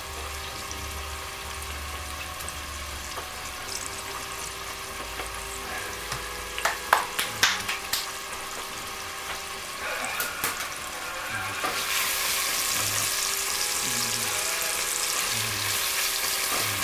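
Chopped bacon sizzling in hot fat in a stainless steel pot as its fat renders out, with a few sharp spattering pops about seven seconds in. In the last few seconds a spatula stirs the bacon and the sizzle grows louder.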